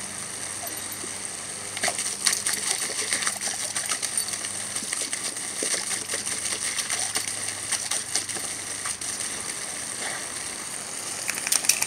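Garden hose spraying water with a steady hiss. From about two seconds in comes a run of sharp clicks and splashes as a puppy snaps and laps at the spray.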